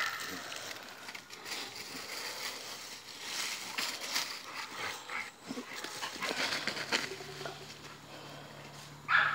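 An American Bully and an American Bulldog tugging a stick between them, with their paws scuffling and rustling in dry leaves. A faint steady low hum comes in about seven seconds in.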